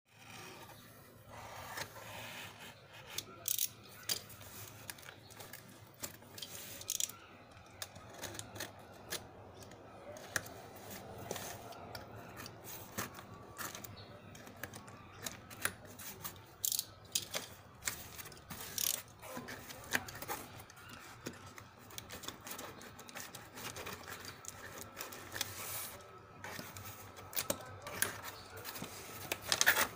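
A snap-off utility knife slitting packing tape on a cardboard box, with scraping and scattered sharp clicks as the box is handled and its flaps opened.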